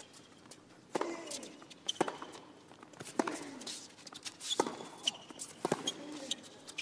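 Tennis rally on a hard court: racket strings striking the ball back and forth, five sharp hits about a second apart.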